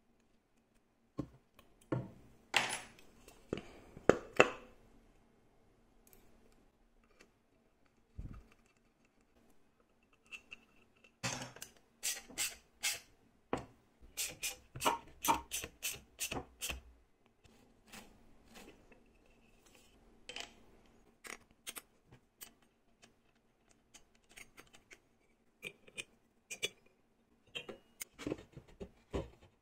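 Small metal hand tools and parts clicking and clinking during assembly of a DC-motor mini table saw: an Allen key tightening the blade arbor on the motor shaft, then a socket ratchet tightening the nut that holds the motor to a plywood plate. Scattered single clicks, with a dense run of quick clicks in the middle.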